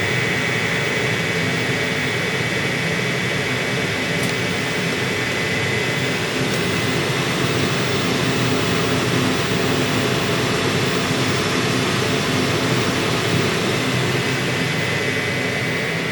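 Gas combi steamer running: a steady whir of its fan and burner with a constant hum and a high whine.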